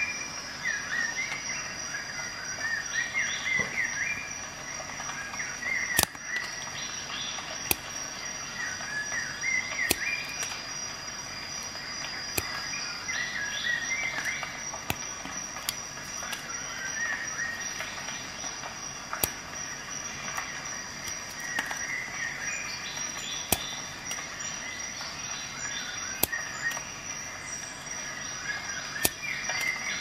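Outdoor ambience: a steady high insect drone with short bird chirps, broken by sharp clicks every second or two.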